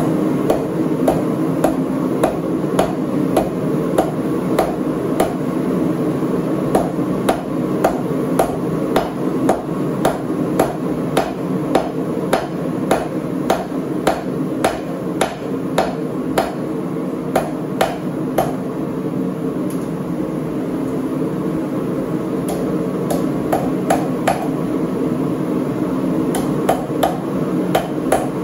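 Blacksmith's hammer forging steel on an anvil: a long, steady run of blows at about two a second, with a few short let-ups, over a steady hum.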